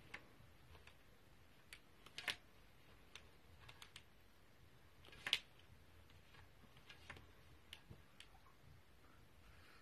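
Scattered faint clicks and taps from a pet rabbit moving and nosing about on a carpet beside a power strip and cable, the sharpest a little over two seconds in and again about five seconds in, over a quiet room.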